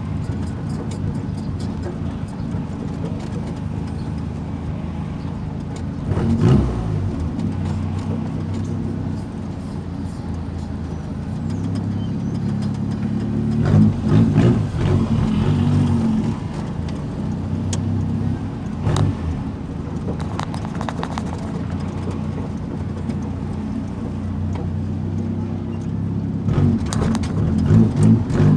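Volkswagen Gol driving with its loud aftermarket exhaust rumbling, the engine note rising and falling with the throttle and revving up briefly about six seconds in, around fourteen seconds in, and again near the end.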